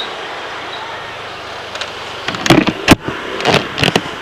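Steady street background noise, then about two seconds in a run of loud, sharp knocks and clicks as fingers handle the helmet and its mounted action-camera mic.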